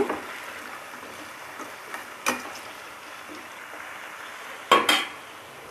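Diced potatoes frying in hot oil in a kadhai, a steady sizzle, with a slotted spatula knocking against the pan: one click about two seconds in and two louder knocks near the end.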